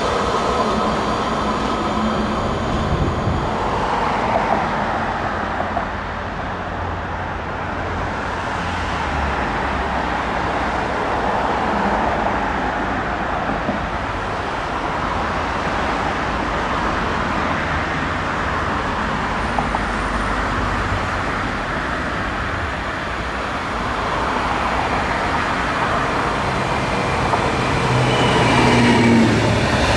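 Steady vehicle rumble and hiss, getting a little louder near the end.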